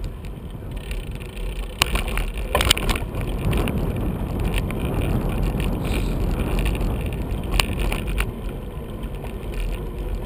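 Bicycle rolling along on tarmac: steady tyre and wind rumble on the bike-mounted camera's microphone, with a few sharp knocks and rattles as the bike jolts over bumps, a cluster of them about two to three seconds in.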